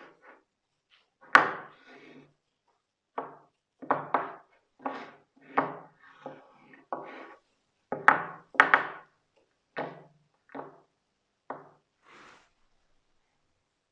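An irregular series of about a dozen sharp wooden knocks and clacks, each dying away quickly. The loudest come about a second in and around eight seconds in.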